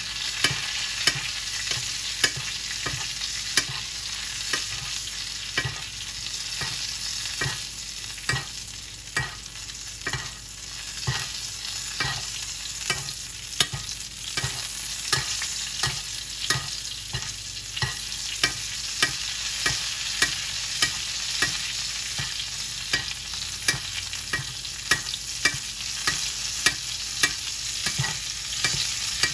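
Onions frying and sizzling in butter in a pan, with a steady hiss. Sharp knocks against the pan come about once a second as the onions are stirred and basted.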